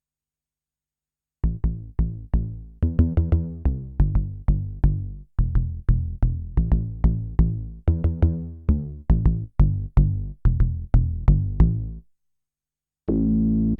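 Kurzweil K2000 synthesizer factory program played dry: a run of short, sharply struck pitched notes, each dying away quickly, about two or three a second, at changing pitches. After a short pause near the end, a different, sustained synth sound begins.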